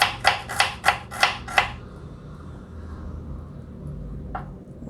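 Kitchen knife chopping onion on a cutting board: about six quick knocks at roughly three a second, a pause of a couple of seconds, then one more knock near the end.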